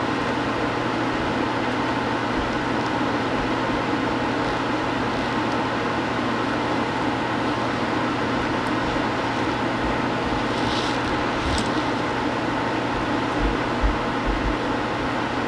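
Steady hiss with a constant low hum that does not change, with a few faint clicks about eleven seconds in and some soft low bumps near the end.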